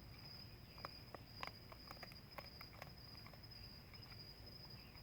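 Faint, steady high-pitched trill of crickets, with a few scattered faint clicks.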